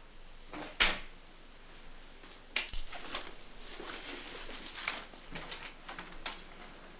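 Wooden cupboard or wardrobe doors being handled: a sharp click about a second in, then a run of knocks and rattles.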